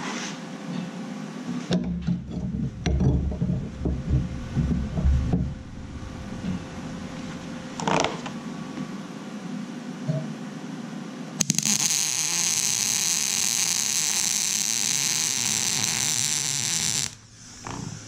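MIG welder running a continuous bead on a steel bar: a steady arc hiss for about five seconds, starting past the middle and cutting off sharply near the end. Before it come low thumps and rustling as the work is handled, and one short sharp sound.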